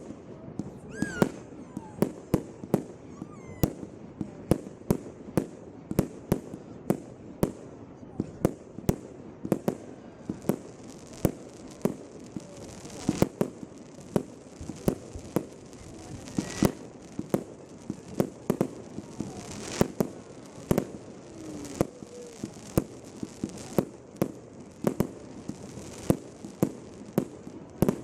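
Fireworks bursting overhead in a rapid, irregular barrage of sharp bangs, roughly two a second, with faint whistles between them.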